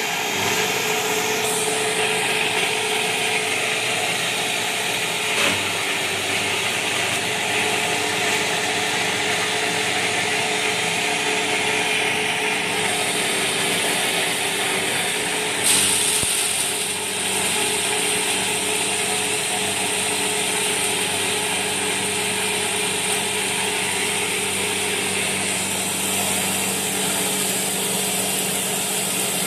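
Animal-feed grinding machine running steadily with a constant motor hum and the hiss of grain passing through it as it is fed into the hopper.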